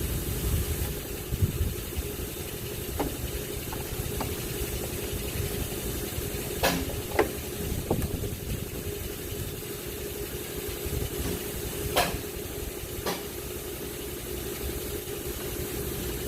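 Wind buffeting the microphone with a steady low hum underneath, and several sharp metal clanks and knocks as a front strut assembly is lifted and fitted up into its mount.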